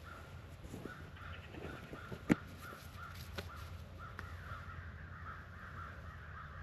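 Squirrel barking: a faint, steady run of short, repeated calls, several a second. One sharp click cuts in about two seconds in.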